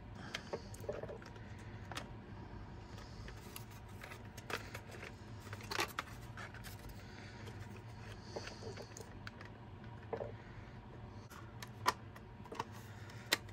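Light plastic clicks and taps from the casing and parts of a portable CD player being handled and fitted back together by hand, scattered and irregular, with a few sharper clicks around six seconds in, near twelve seconds and just before the end.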